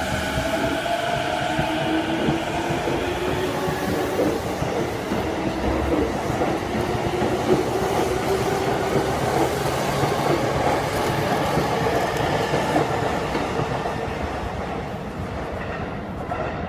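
JR East E233 series electric train pulling out and accelerating past. The inverter-driven traction motors whine, rising slowly in pitch over the rumble and clatter of the wheels on the rails. The sound fades near the end as the last car goes by.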